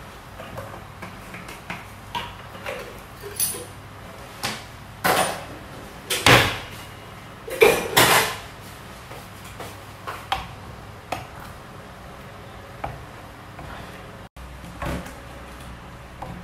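Kitchen clatter: a series of knocks and clinks as jars and utensils are handled and set down on a countertop, loudest between about five and eight seconds in, over a low steady hum. Near the end a wooden spoon stirs tomato sauce in a frying pan.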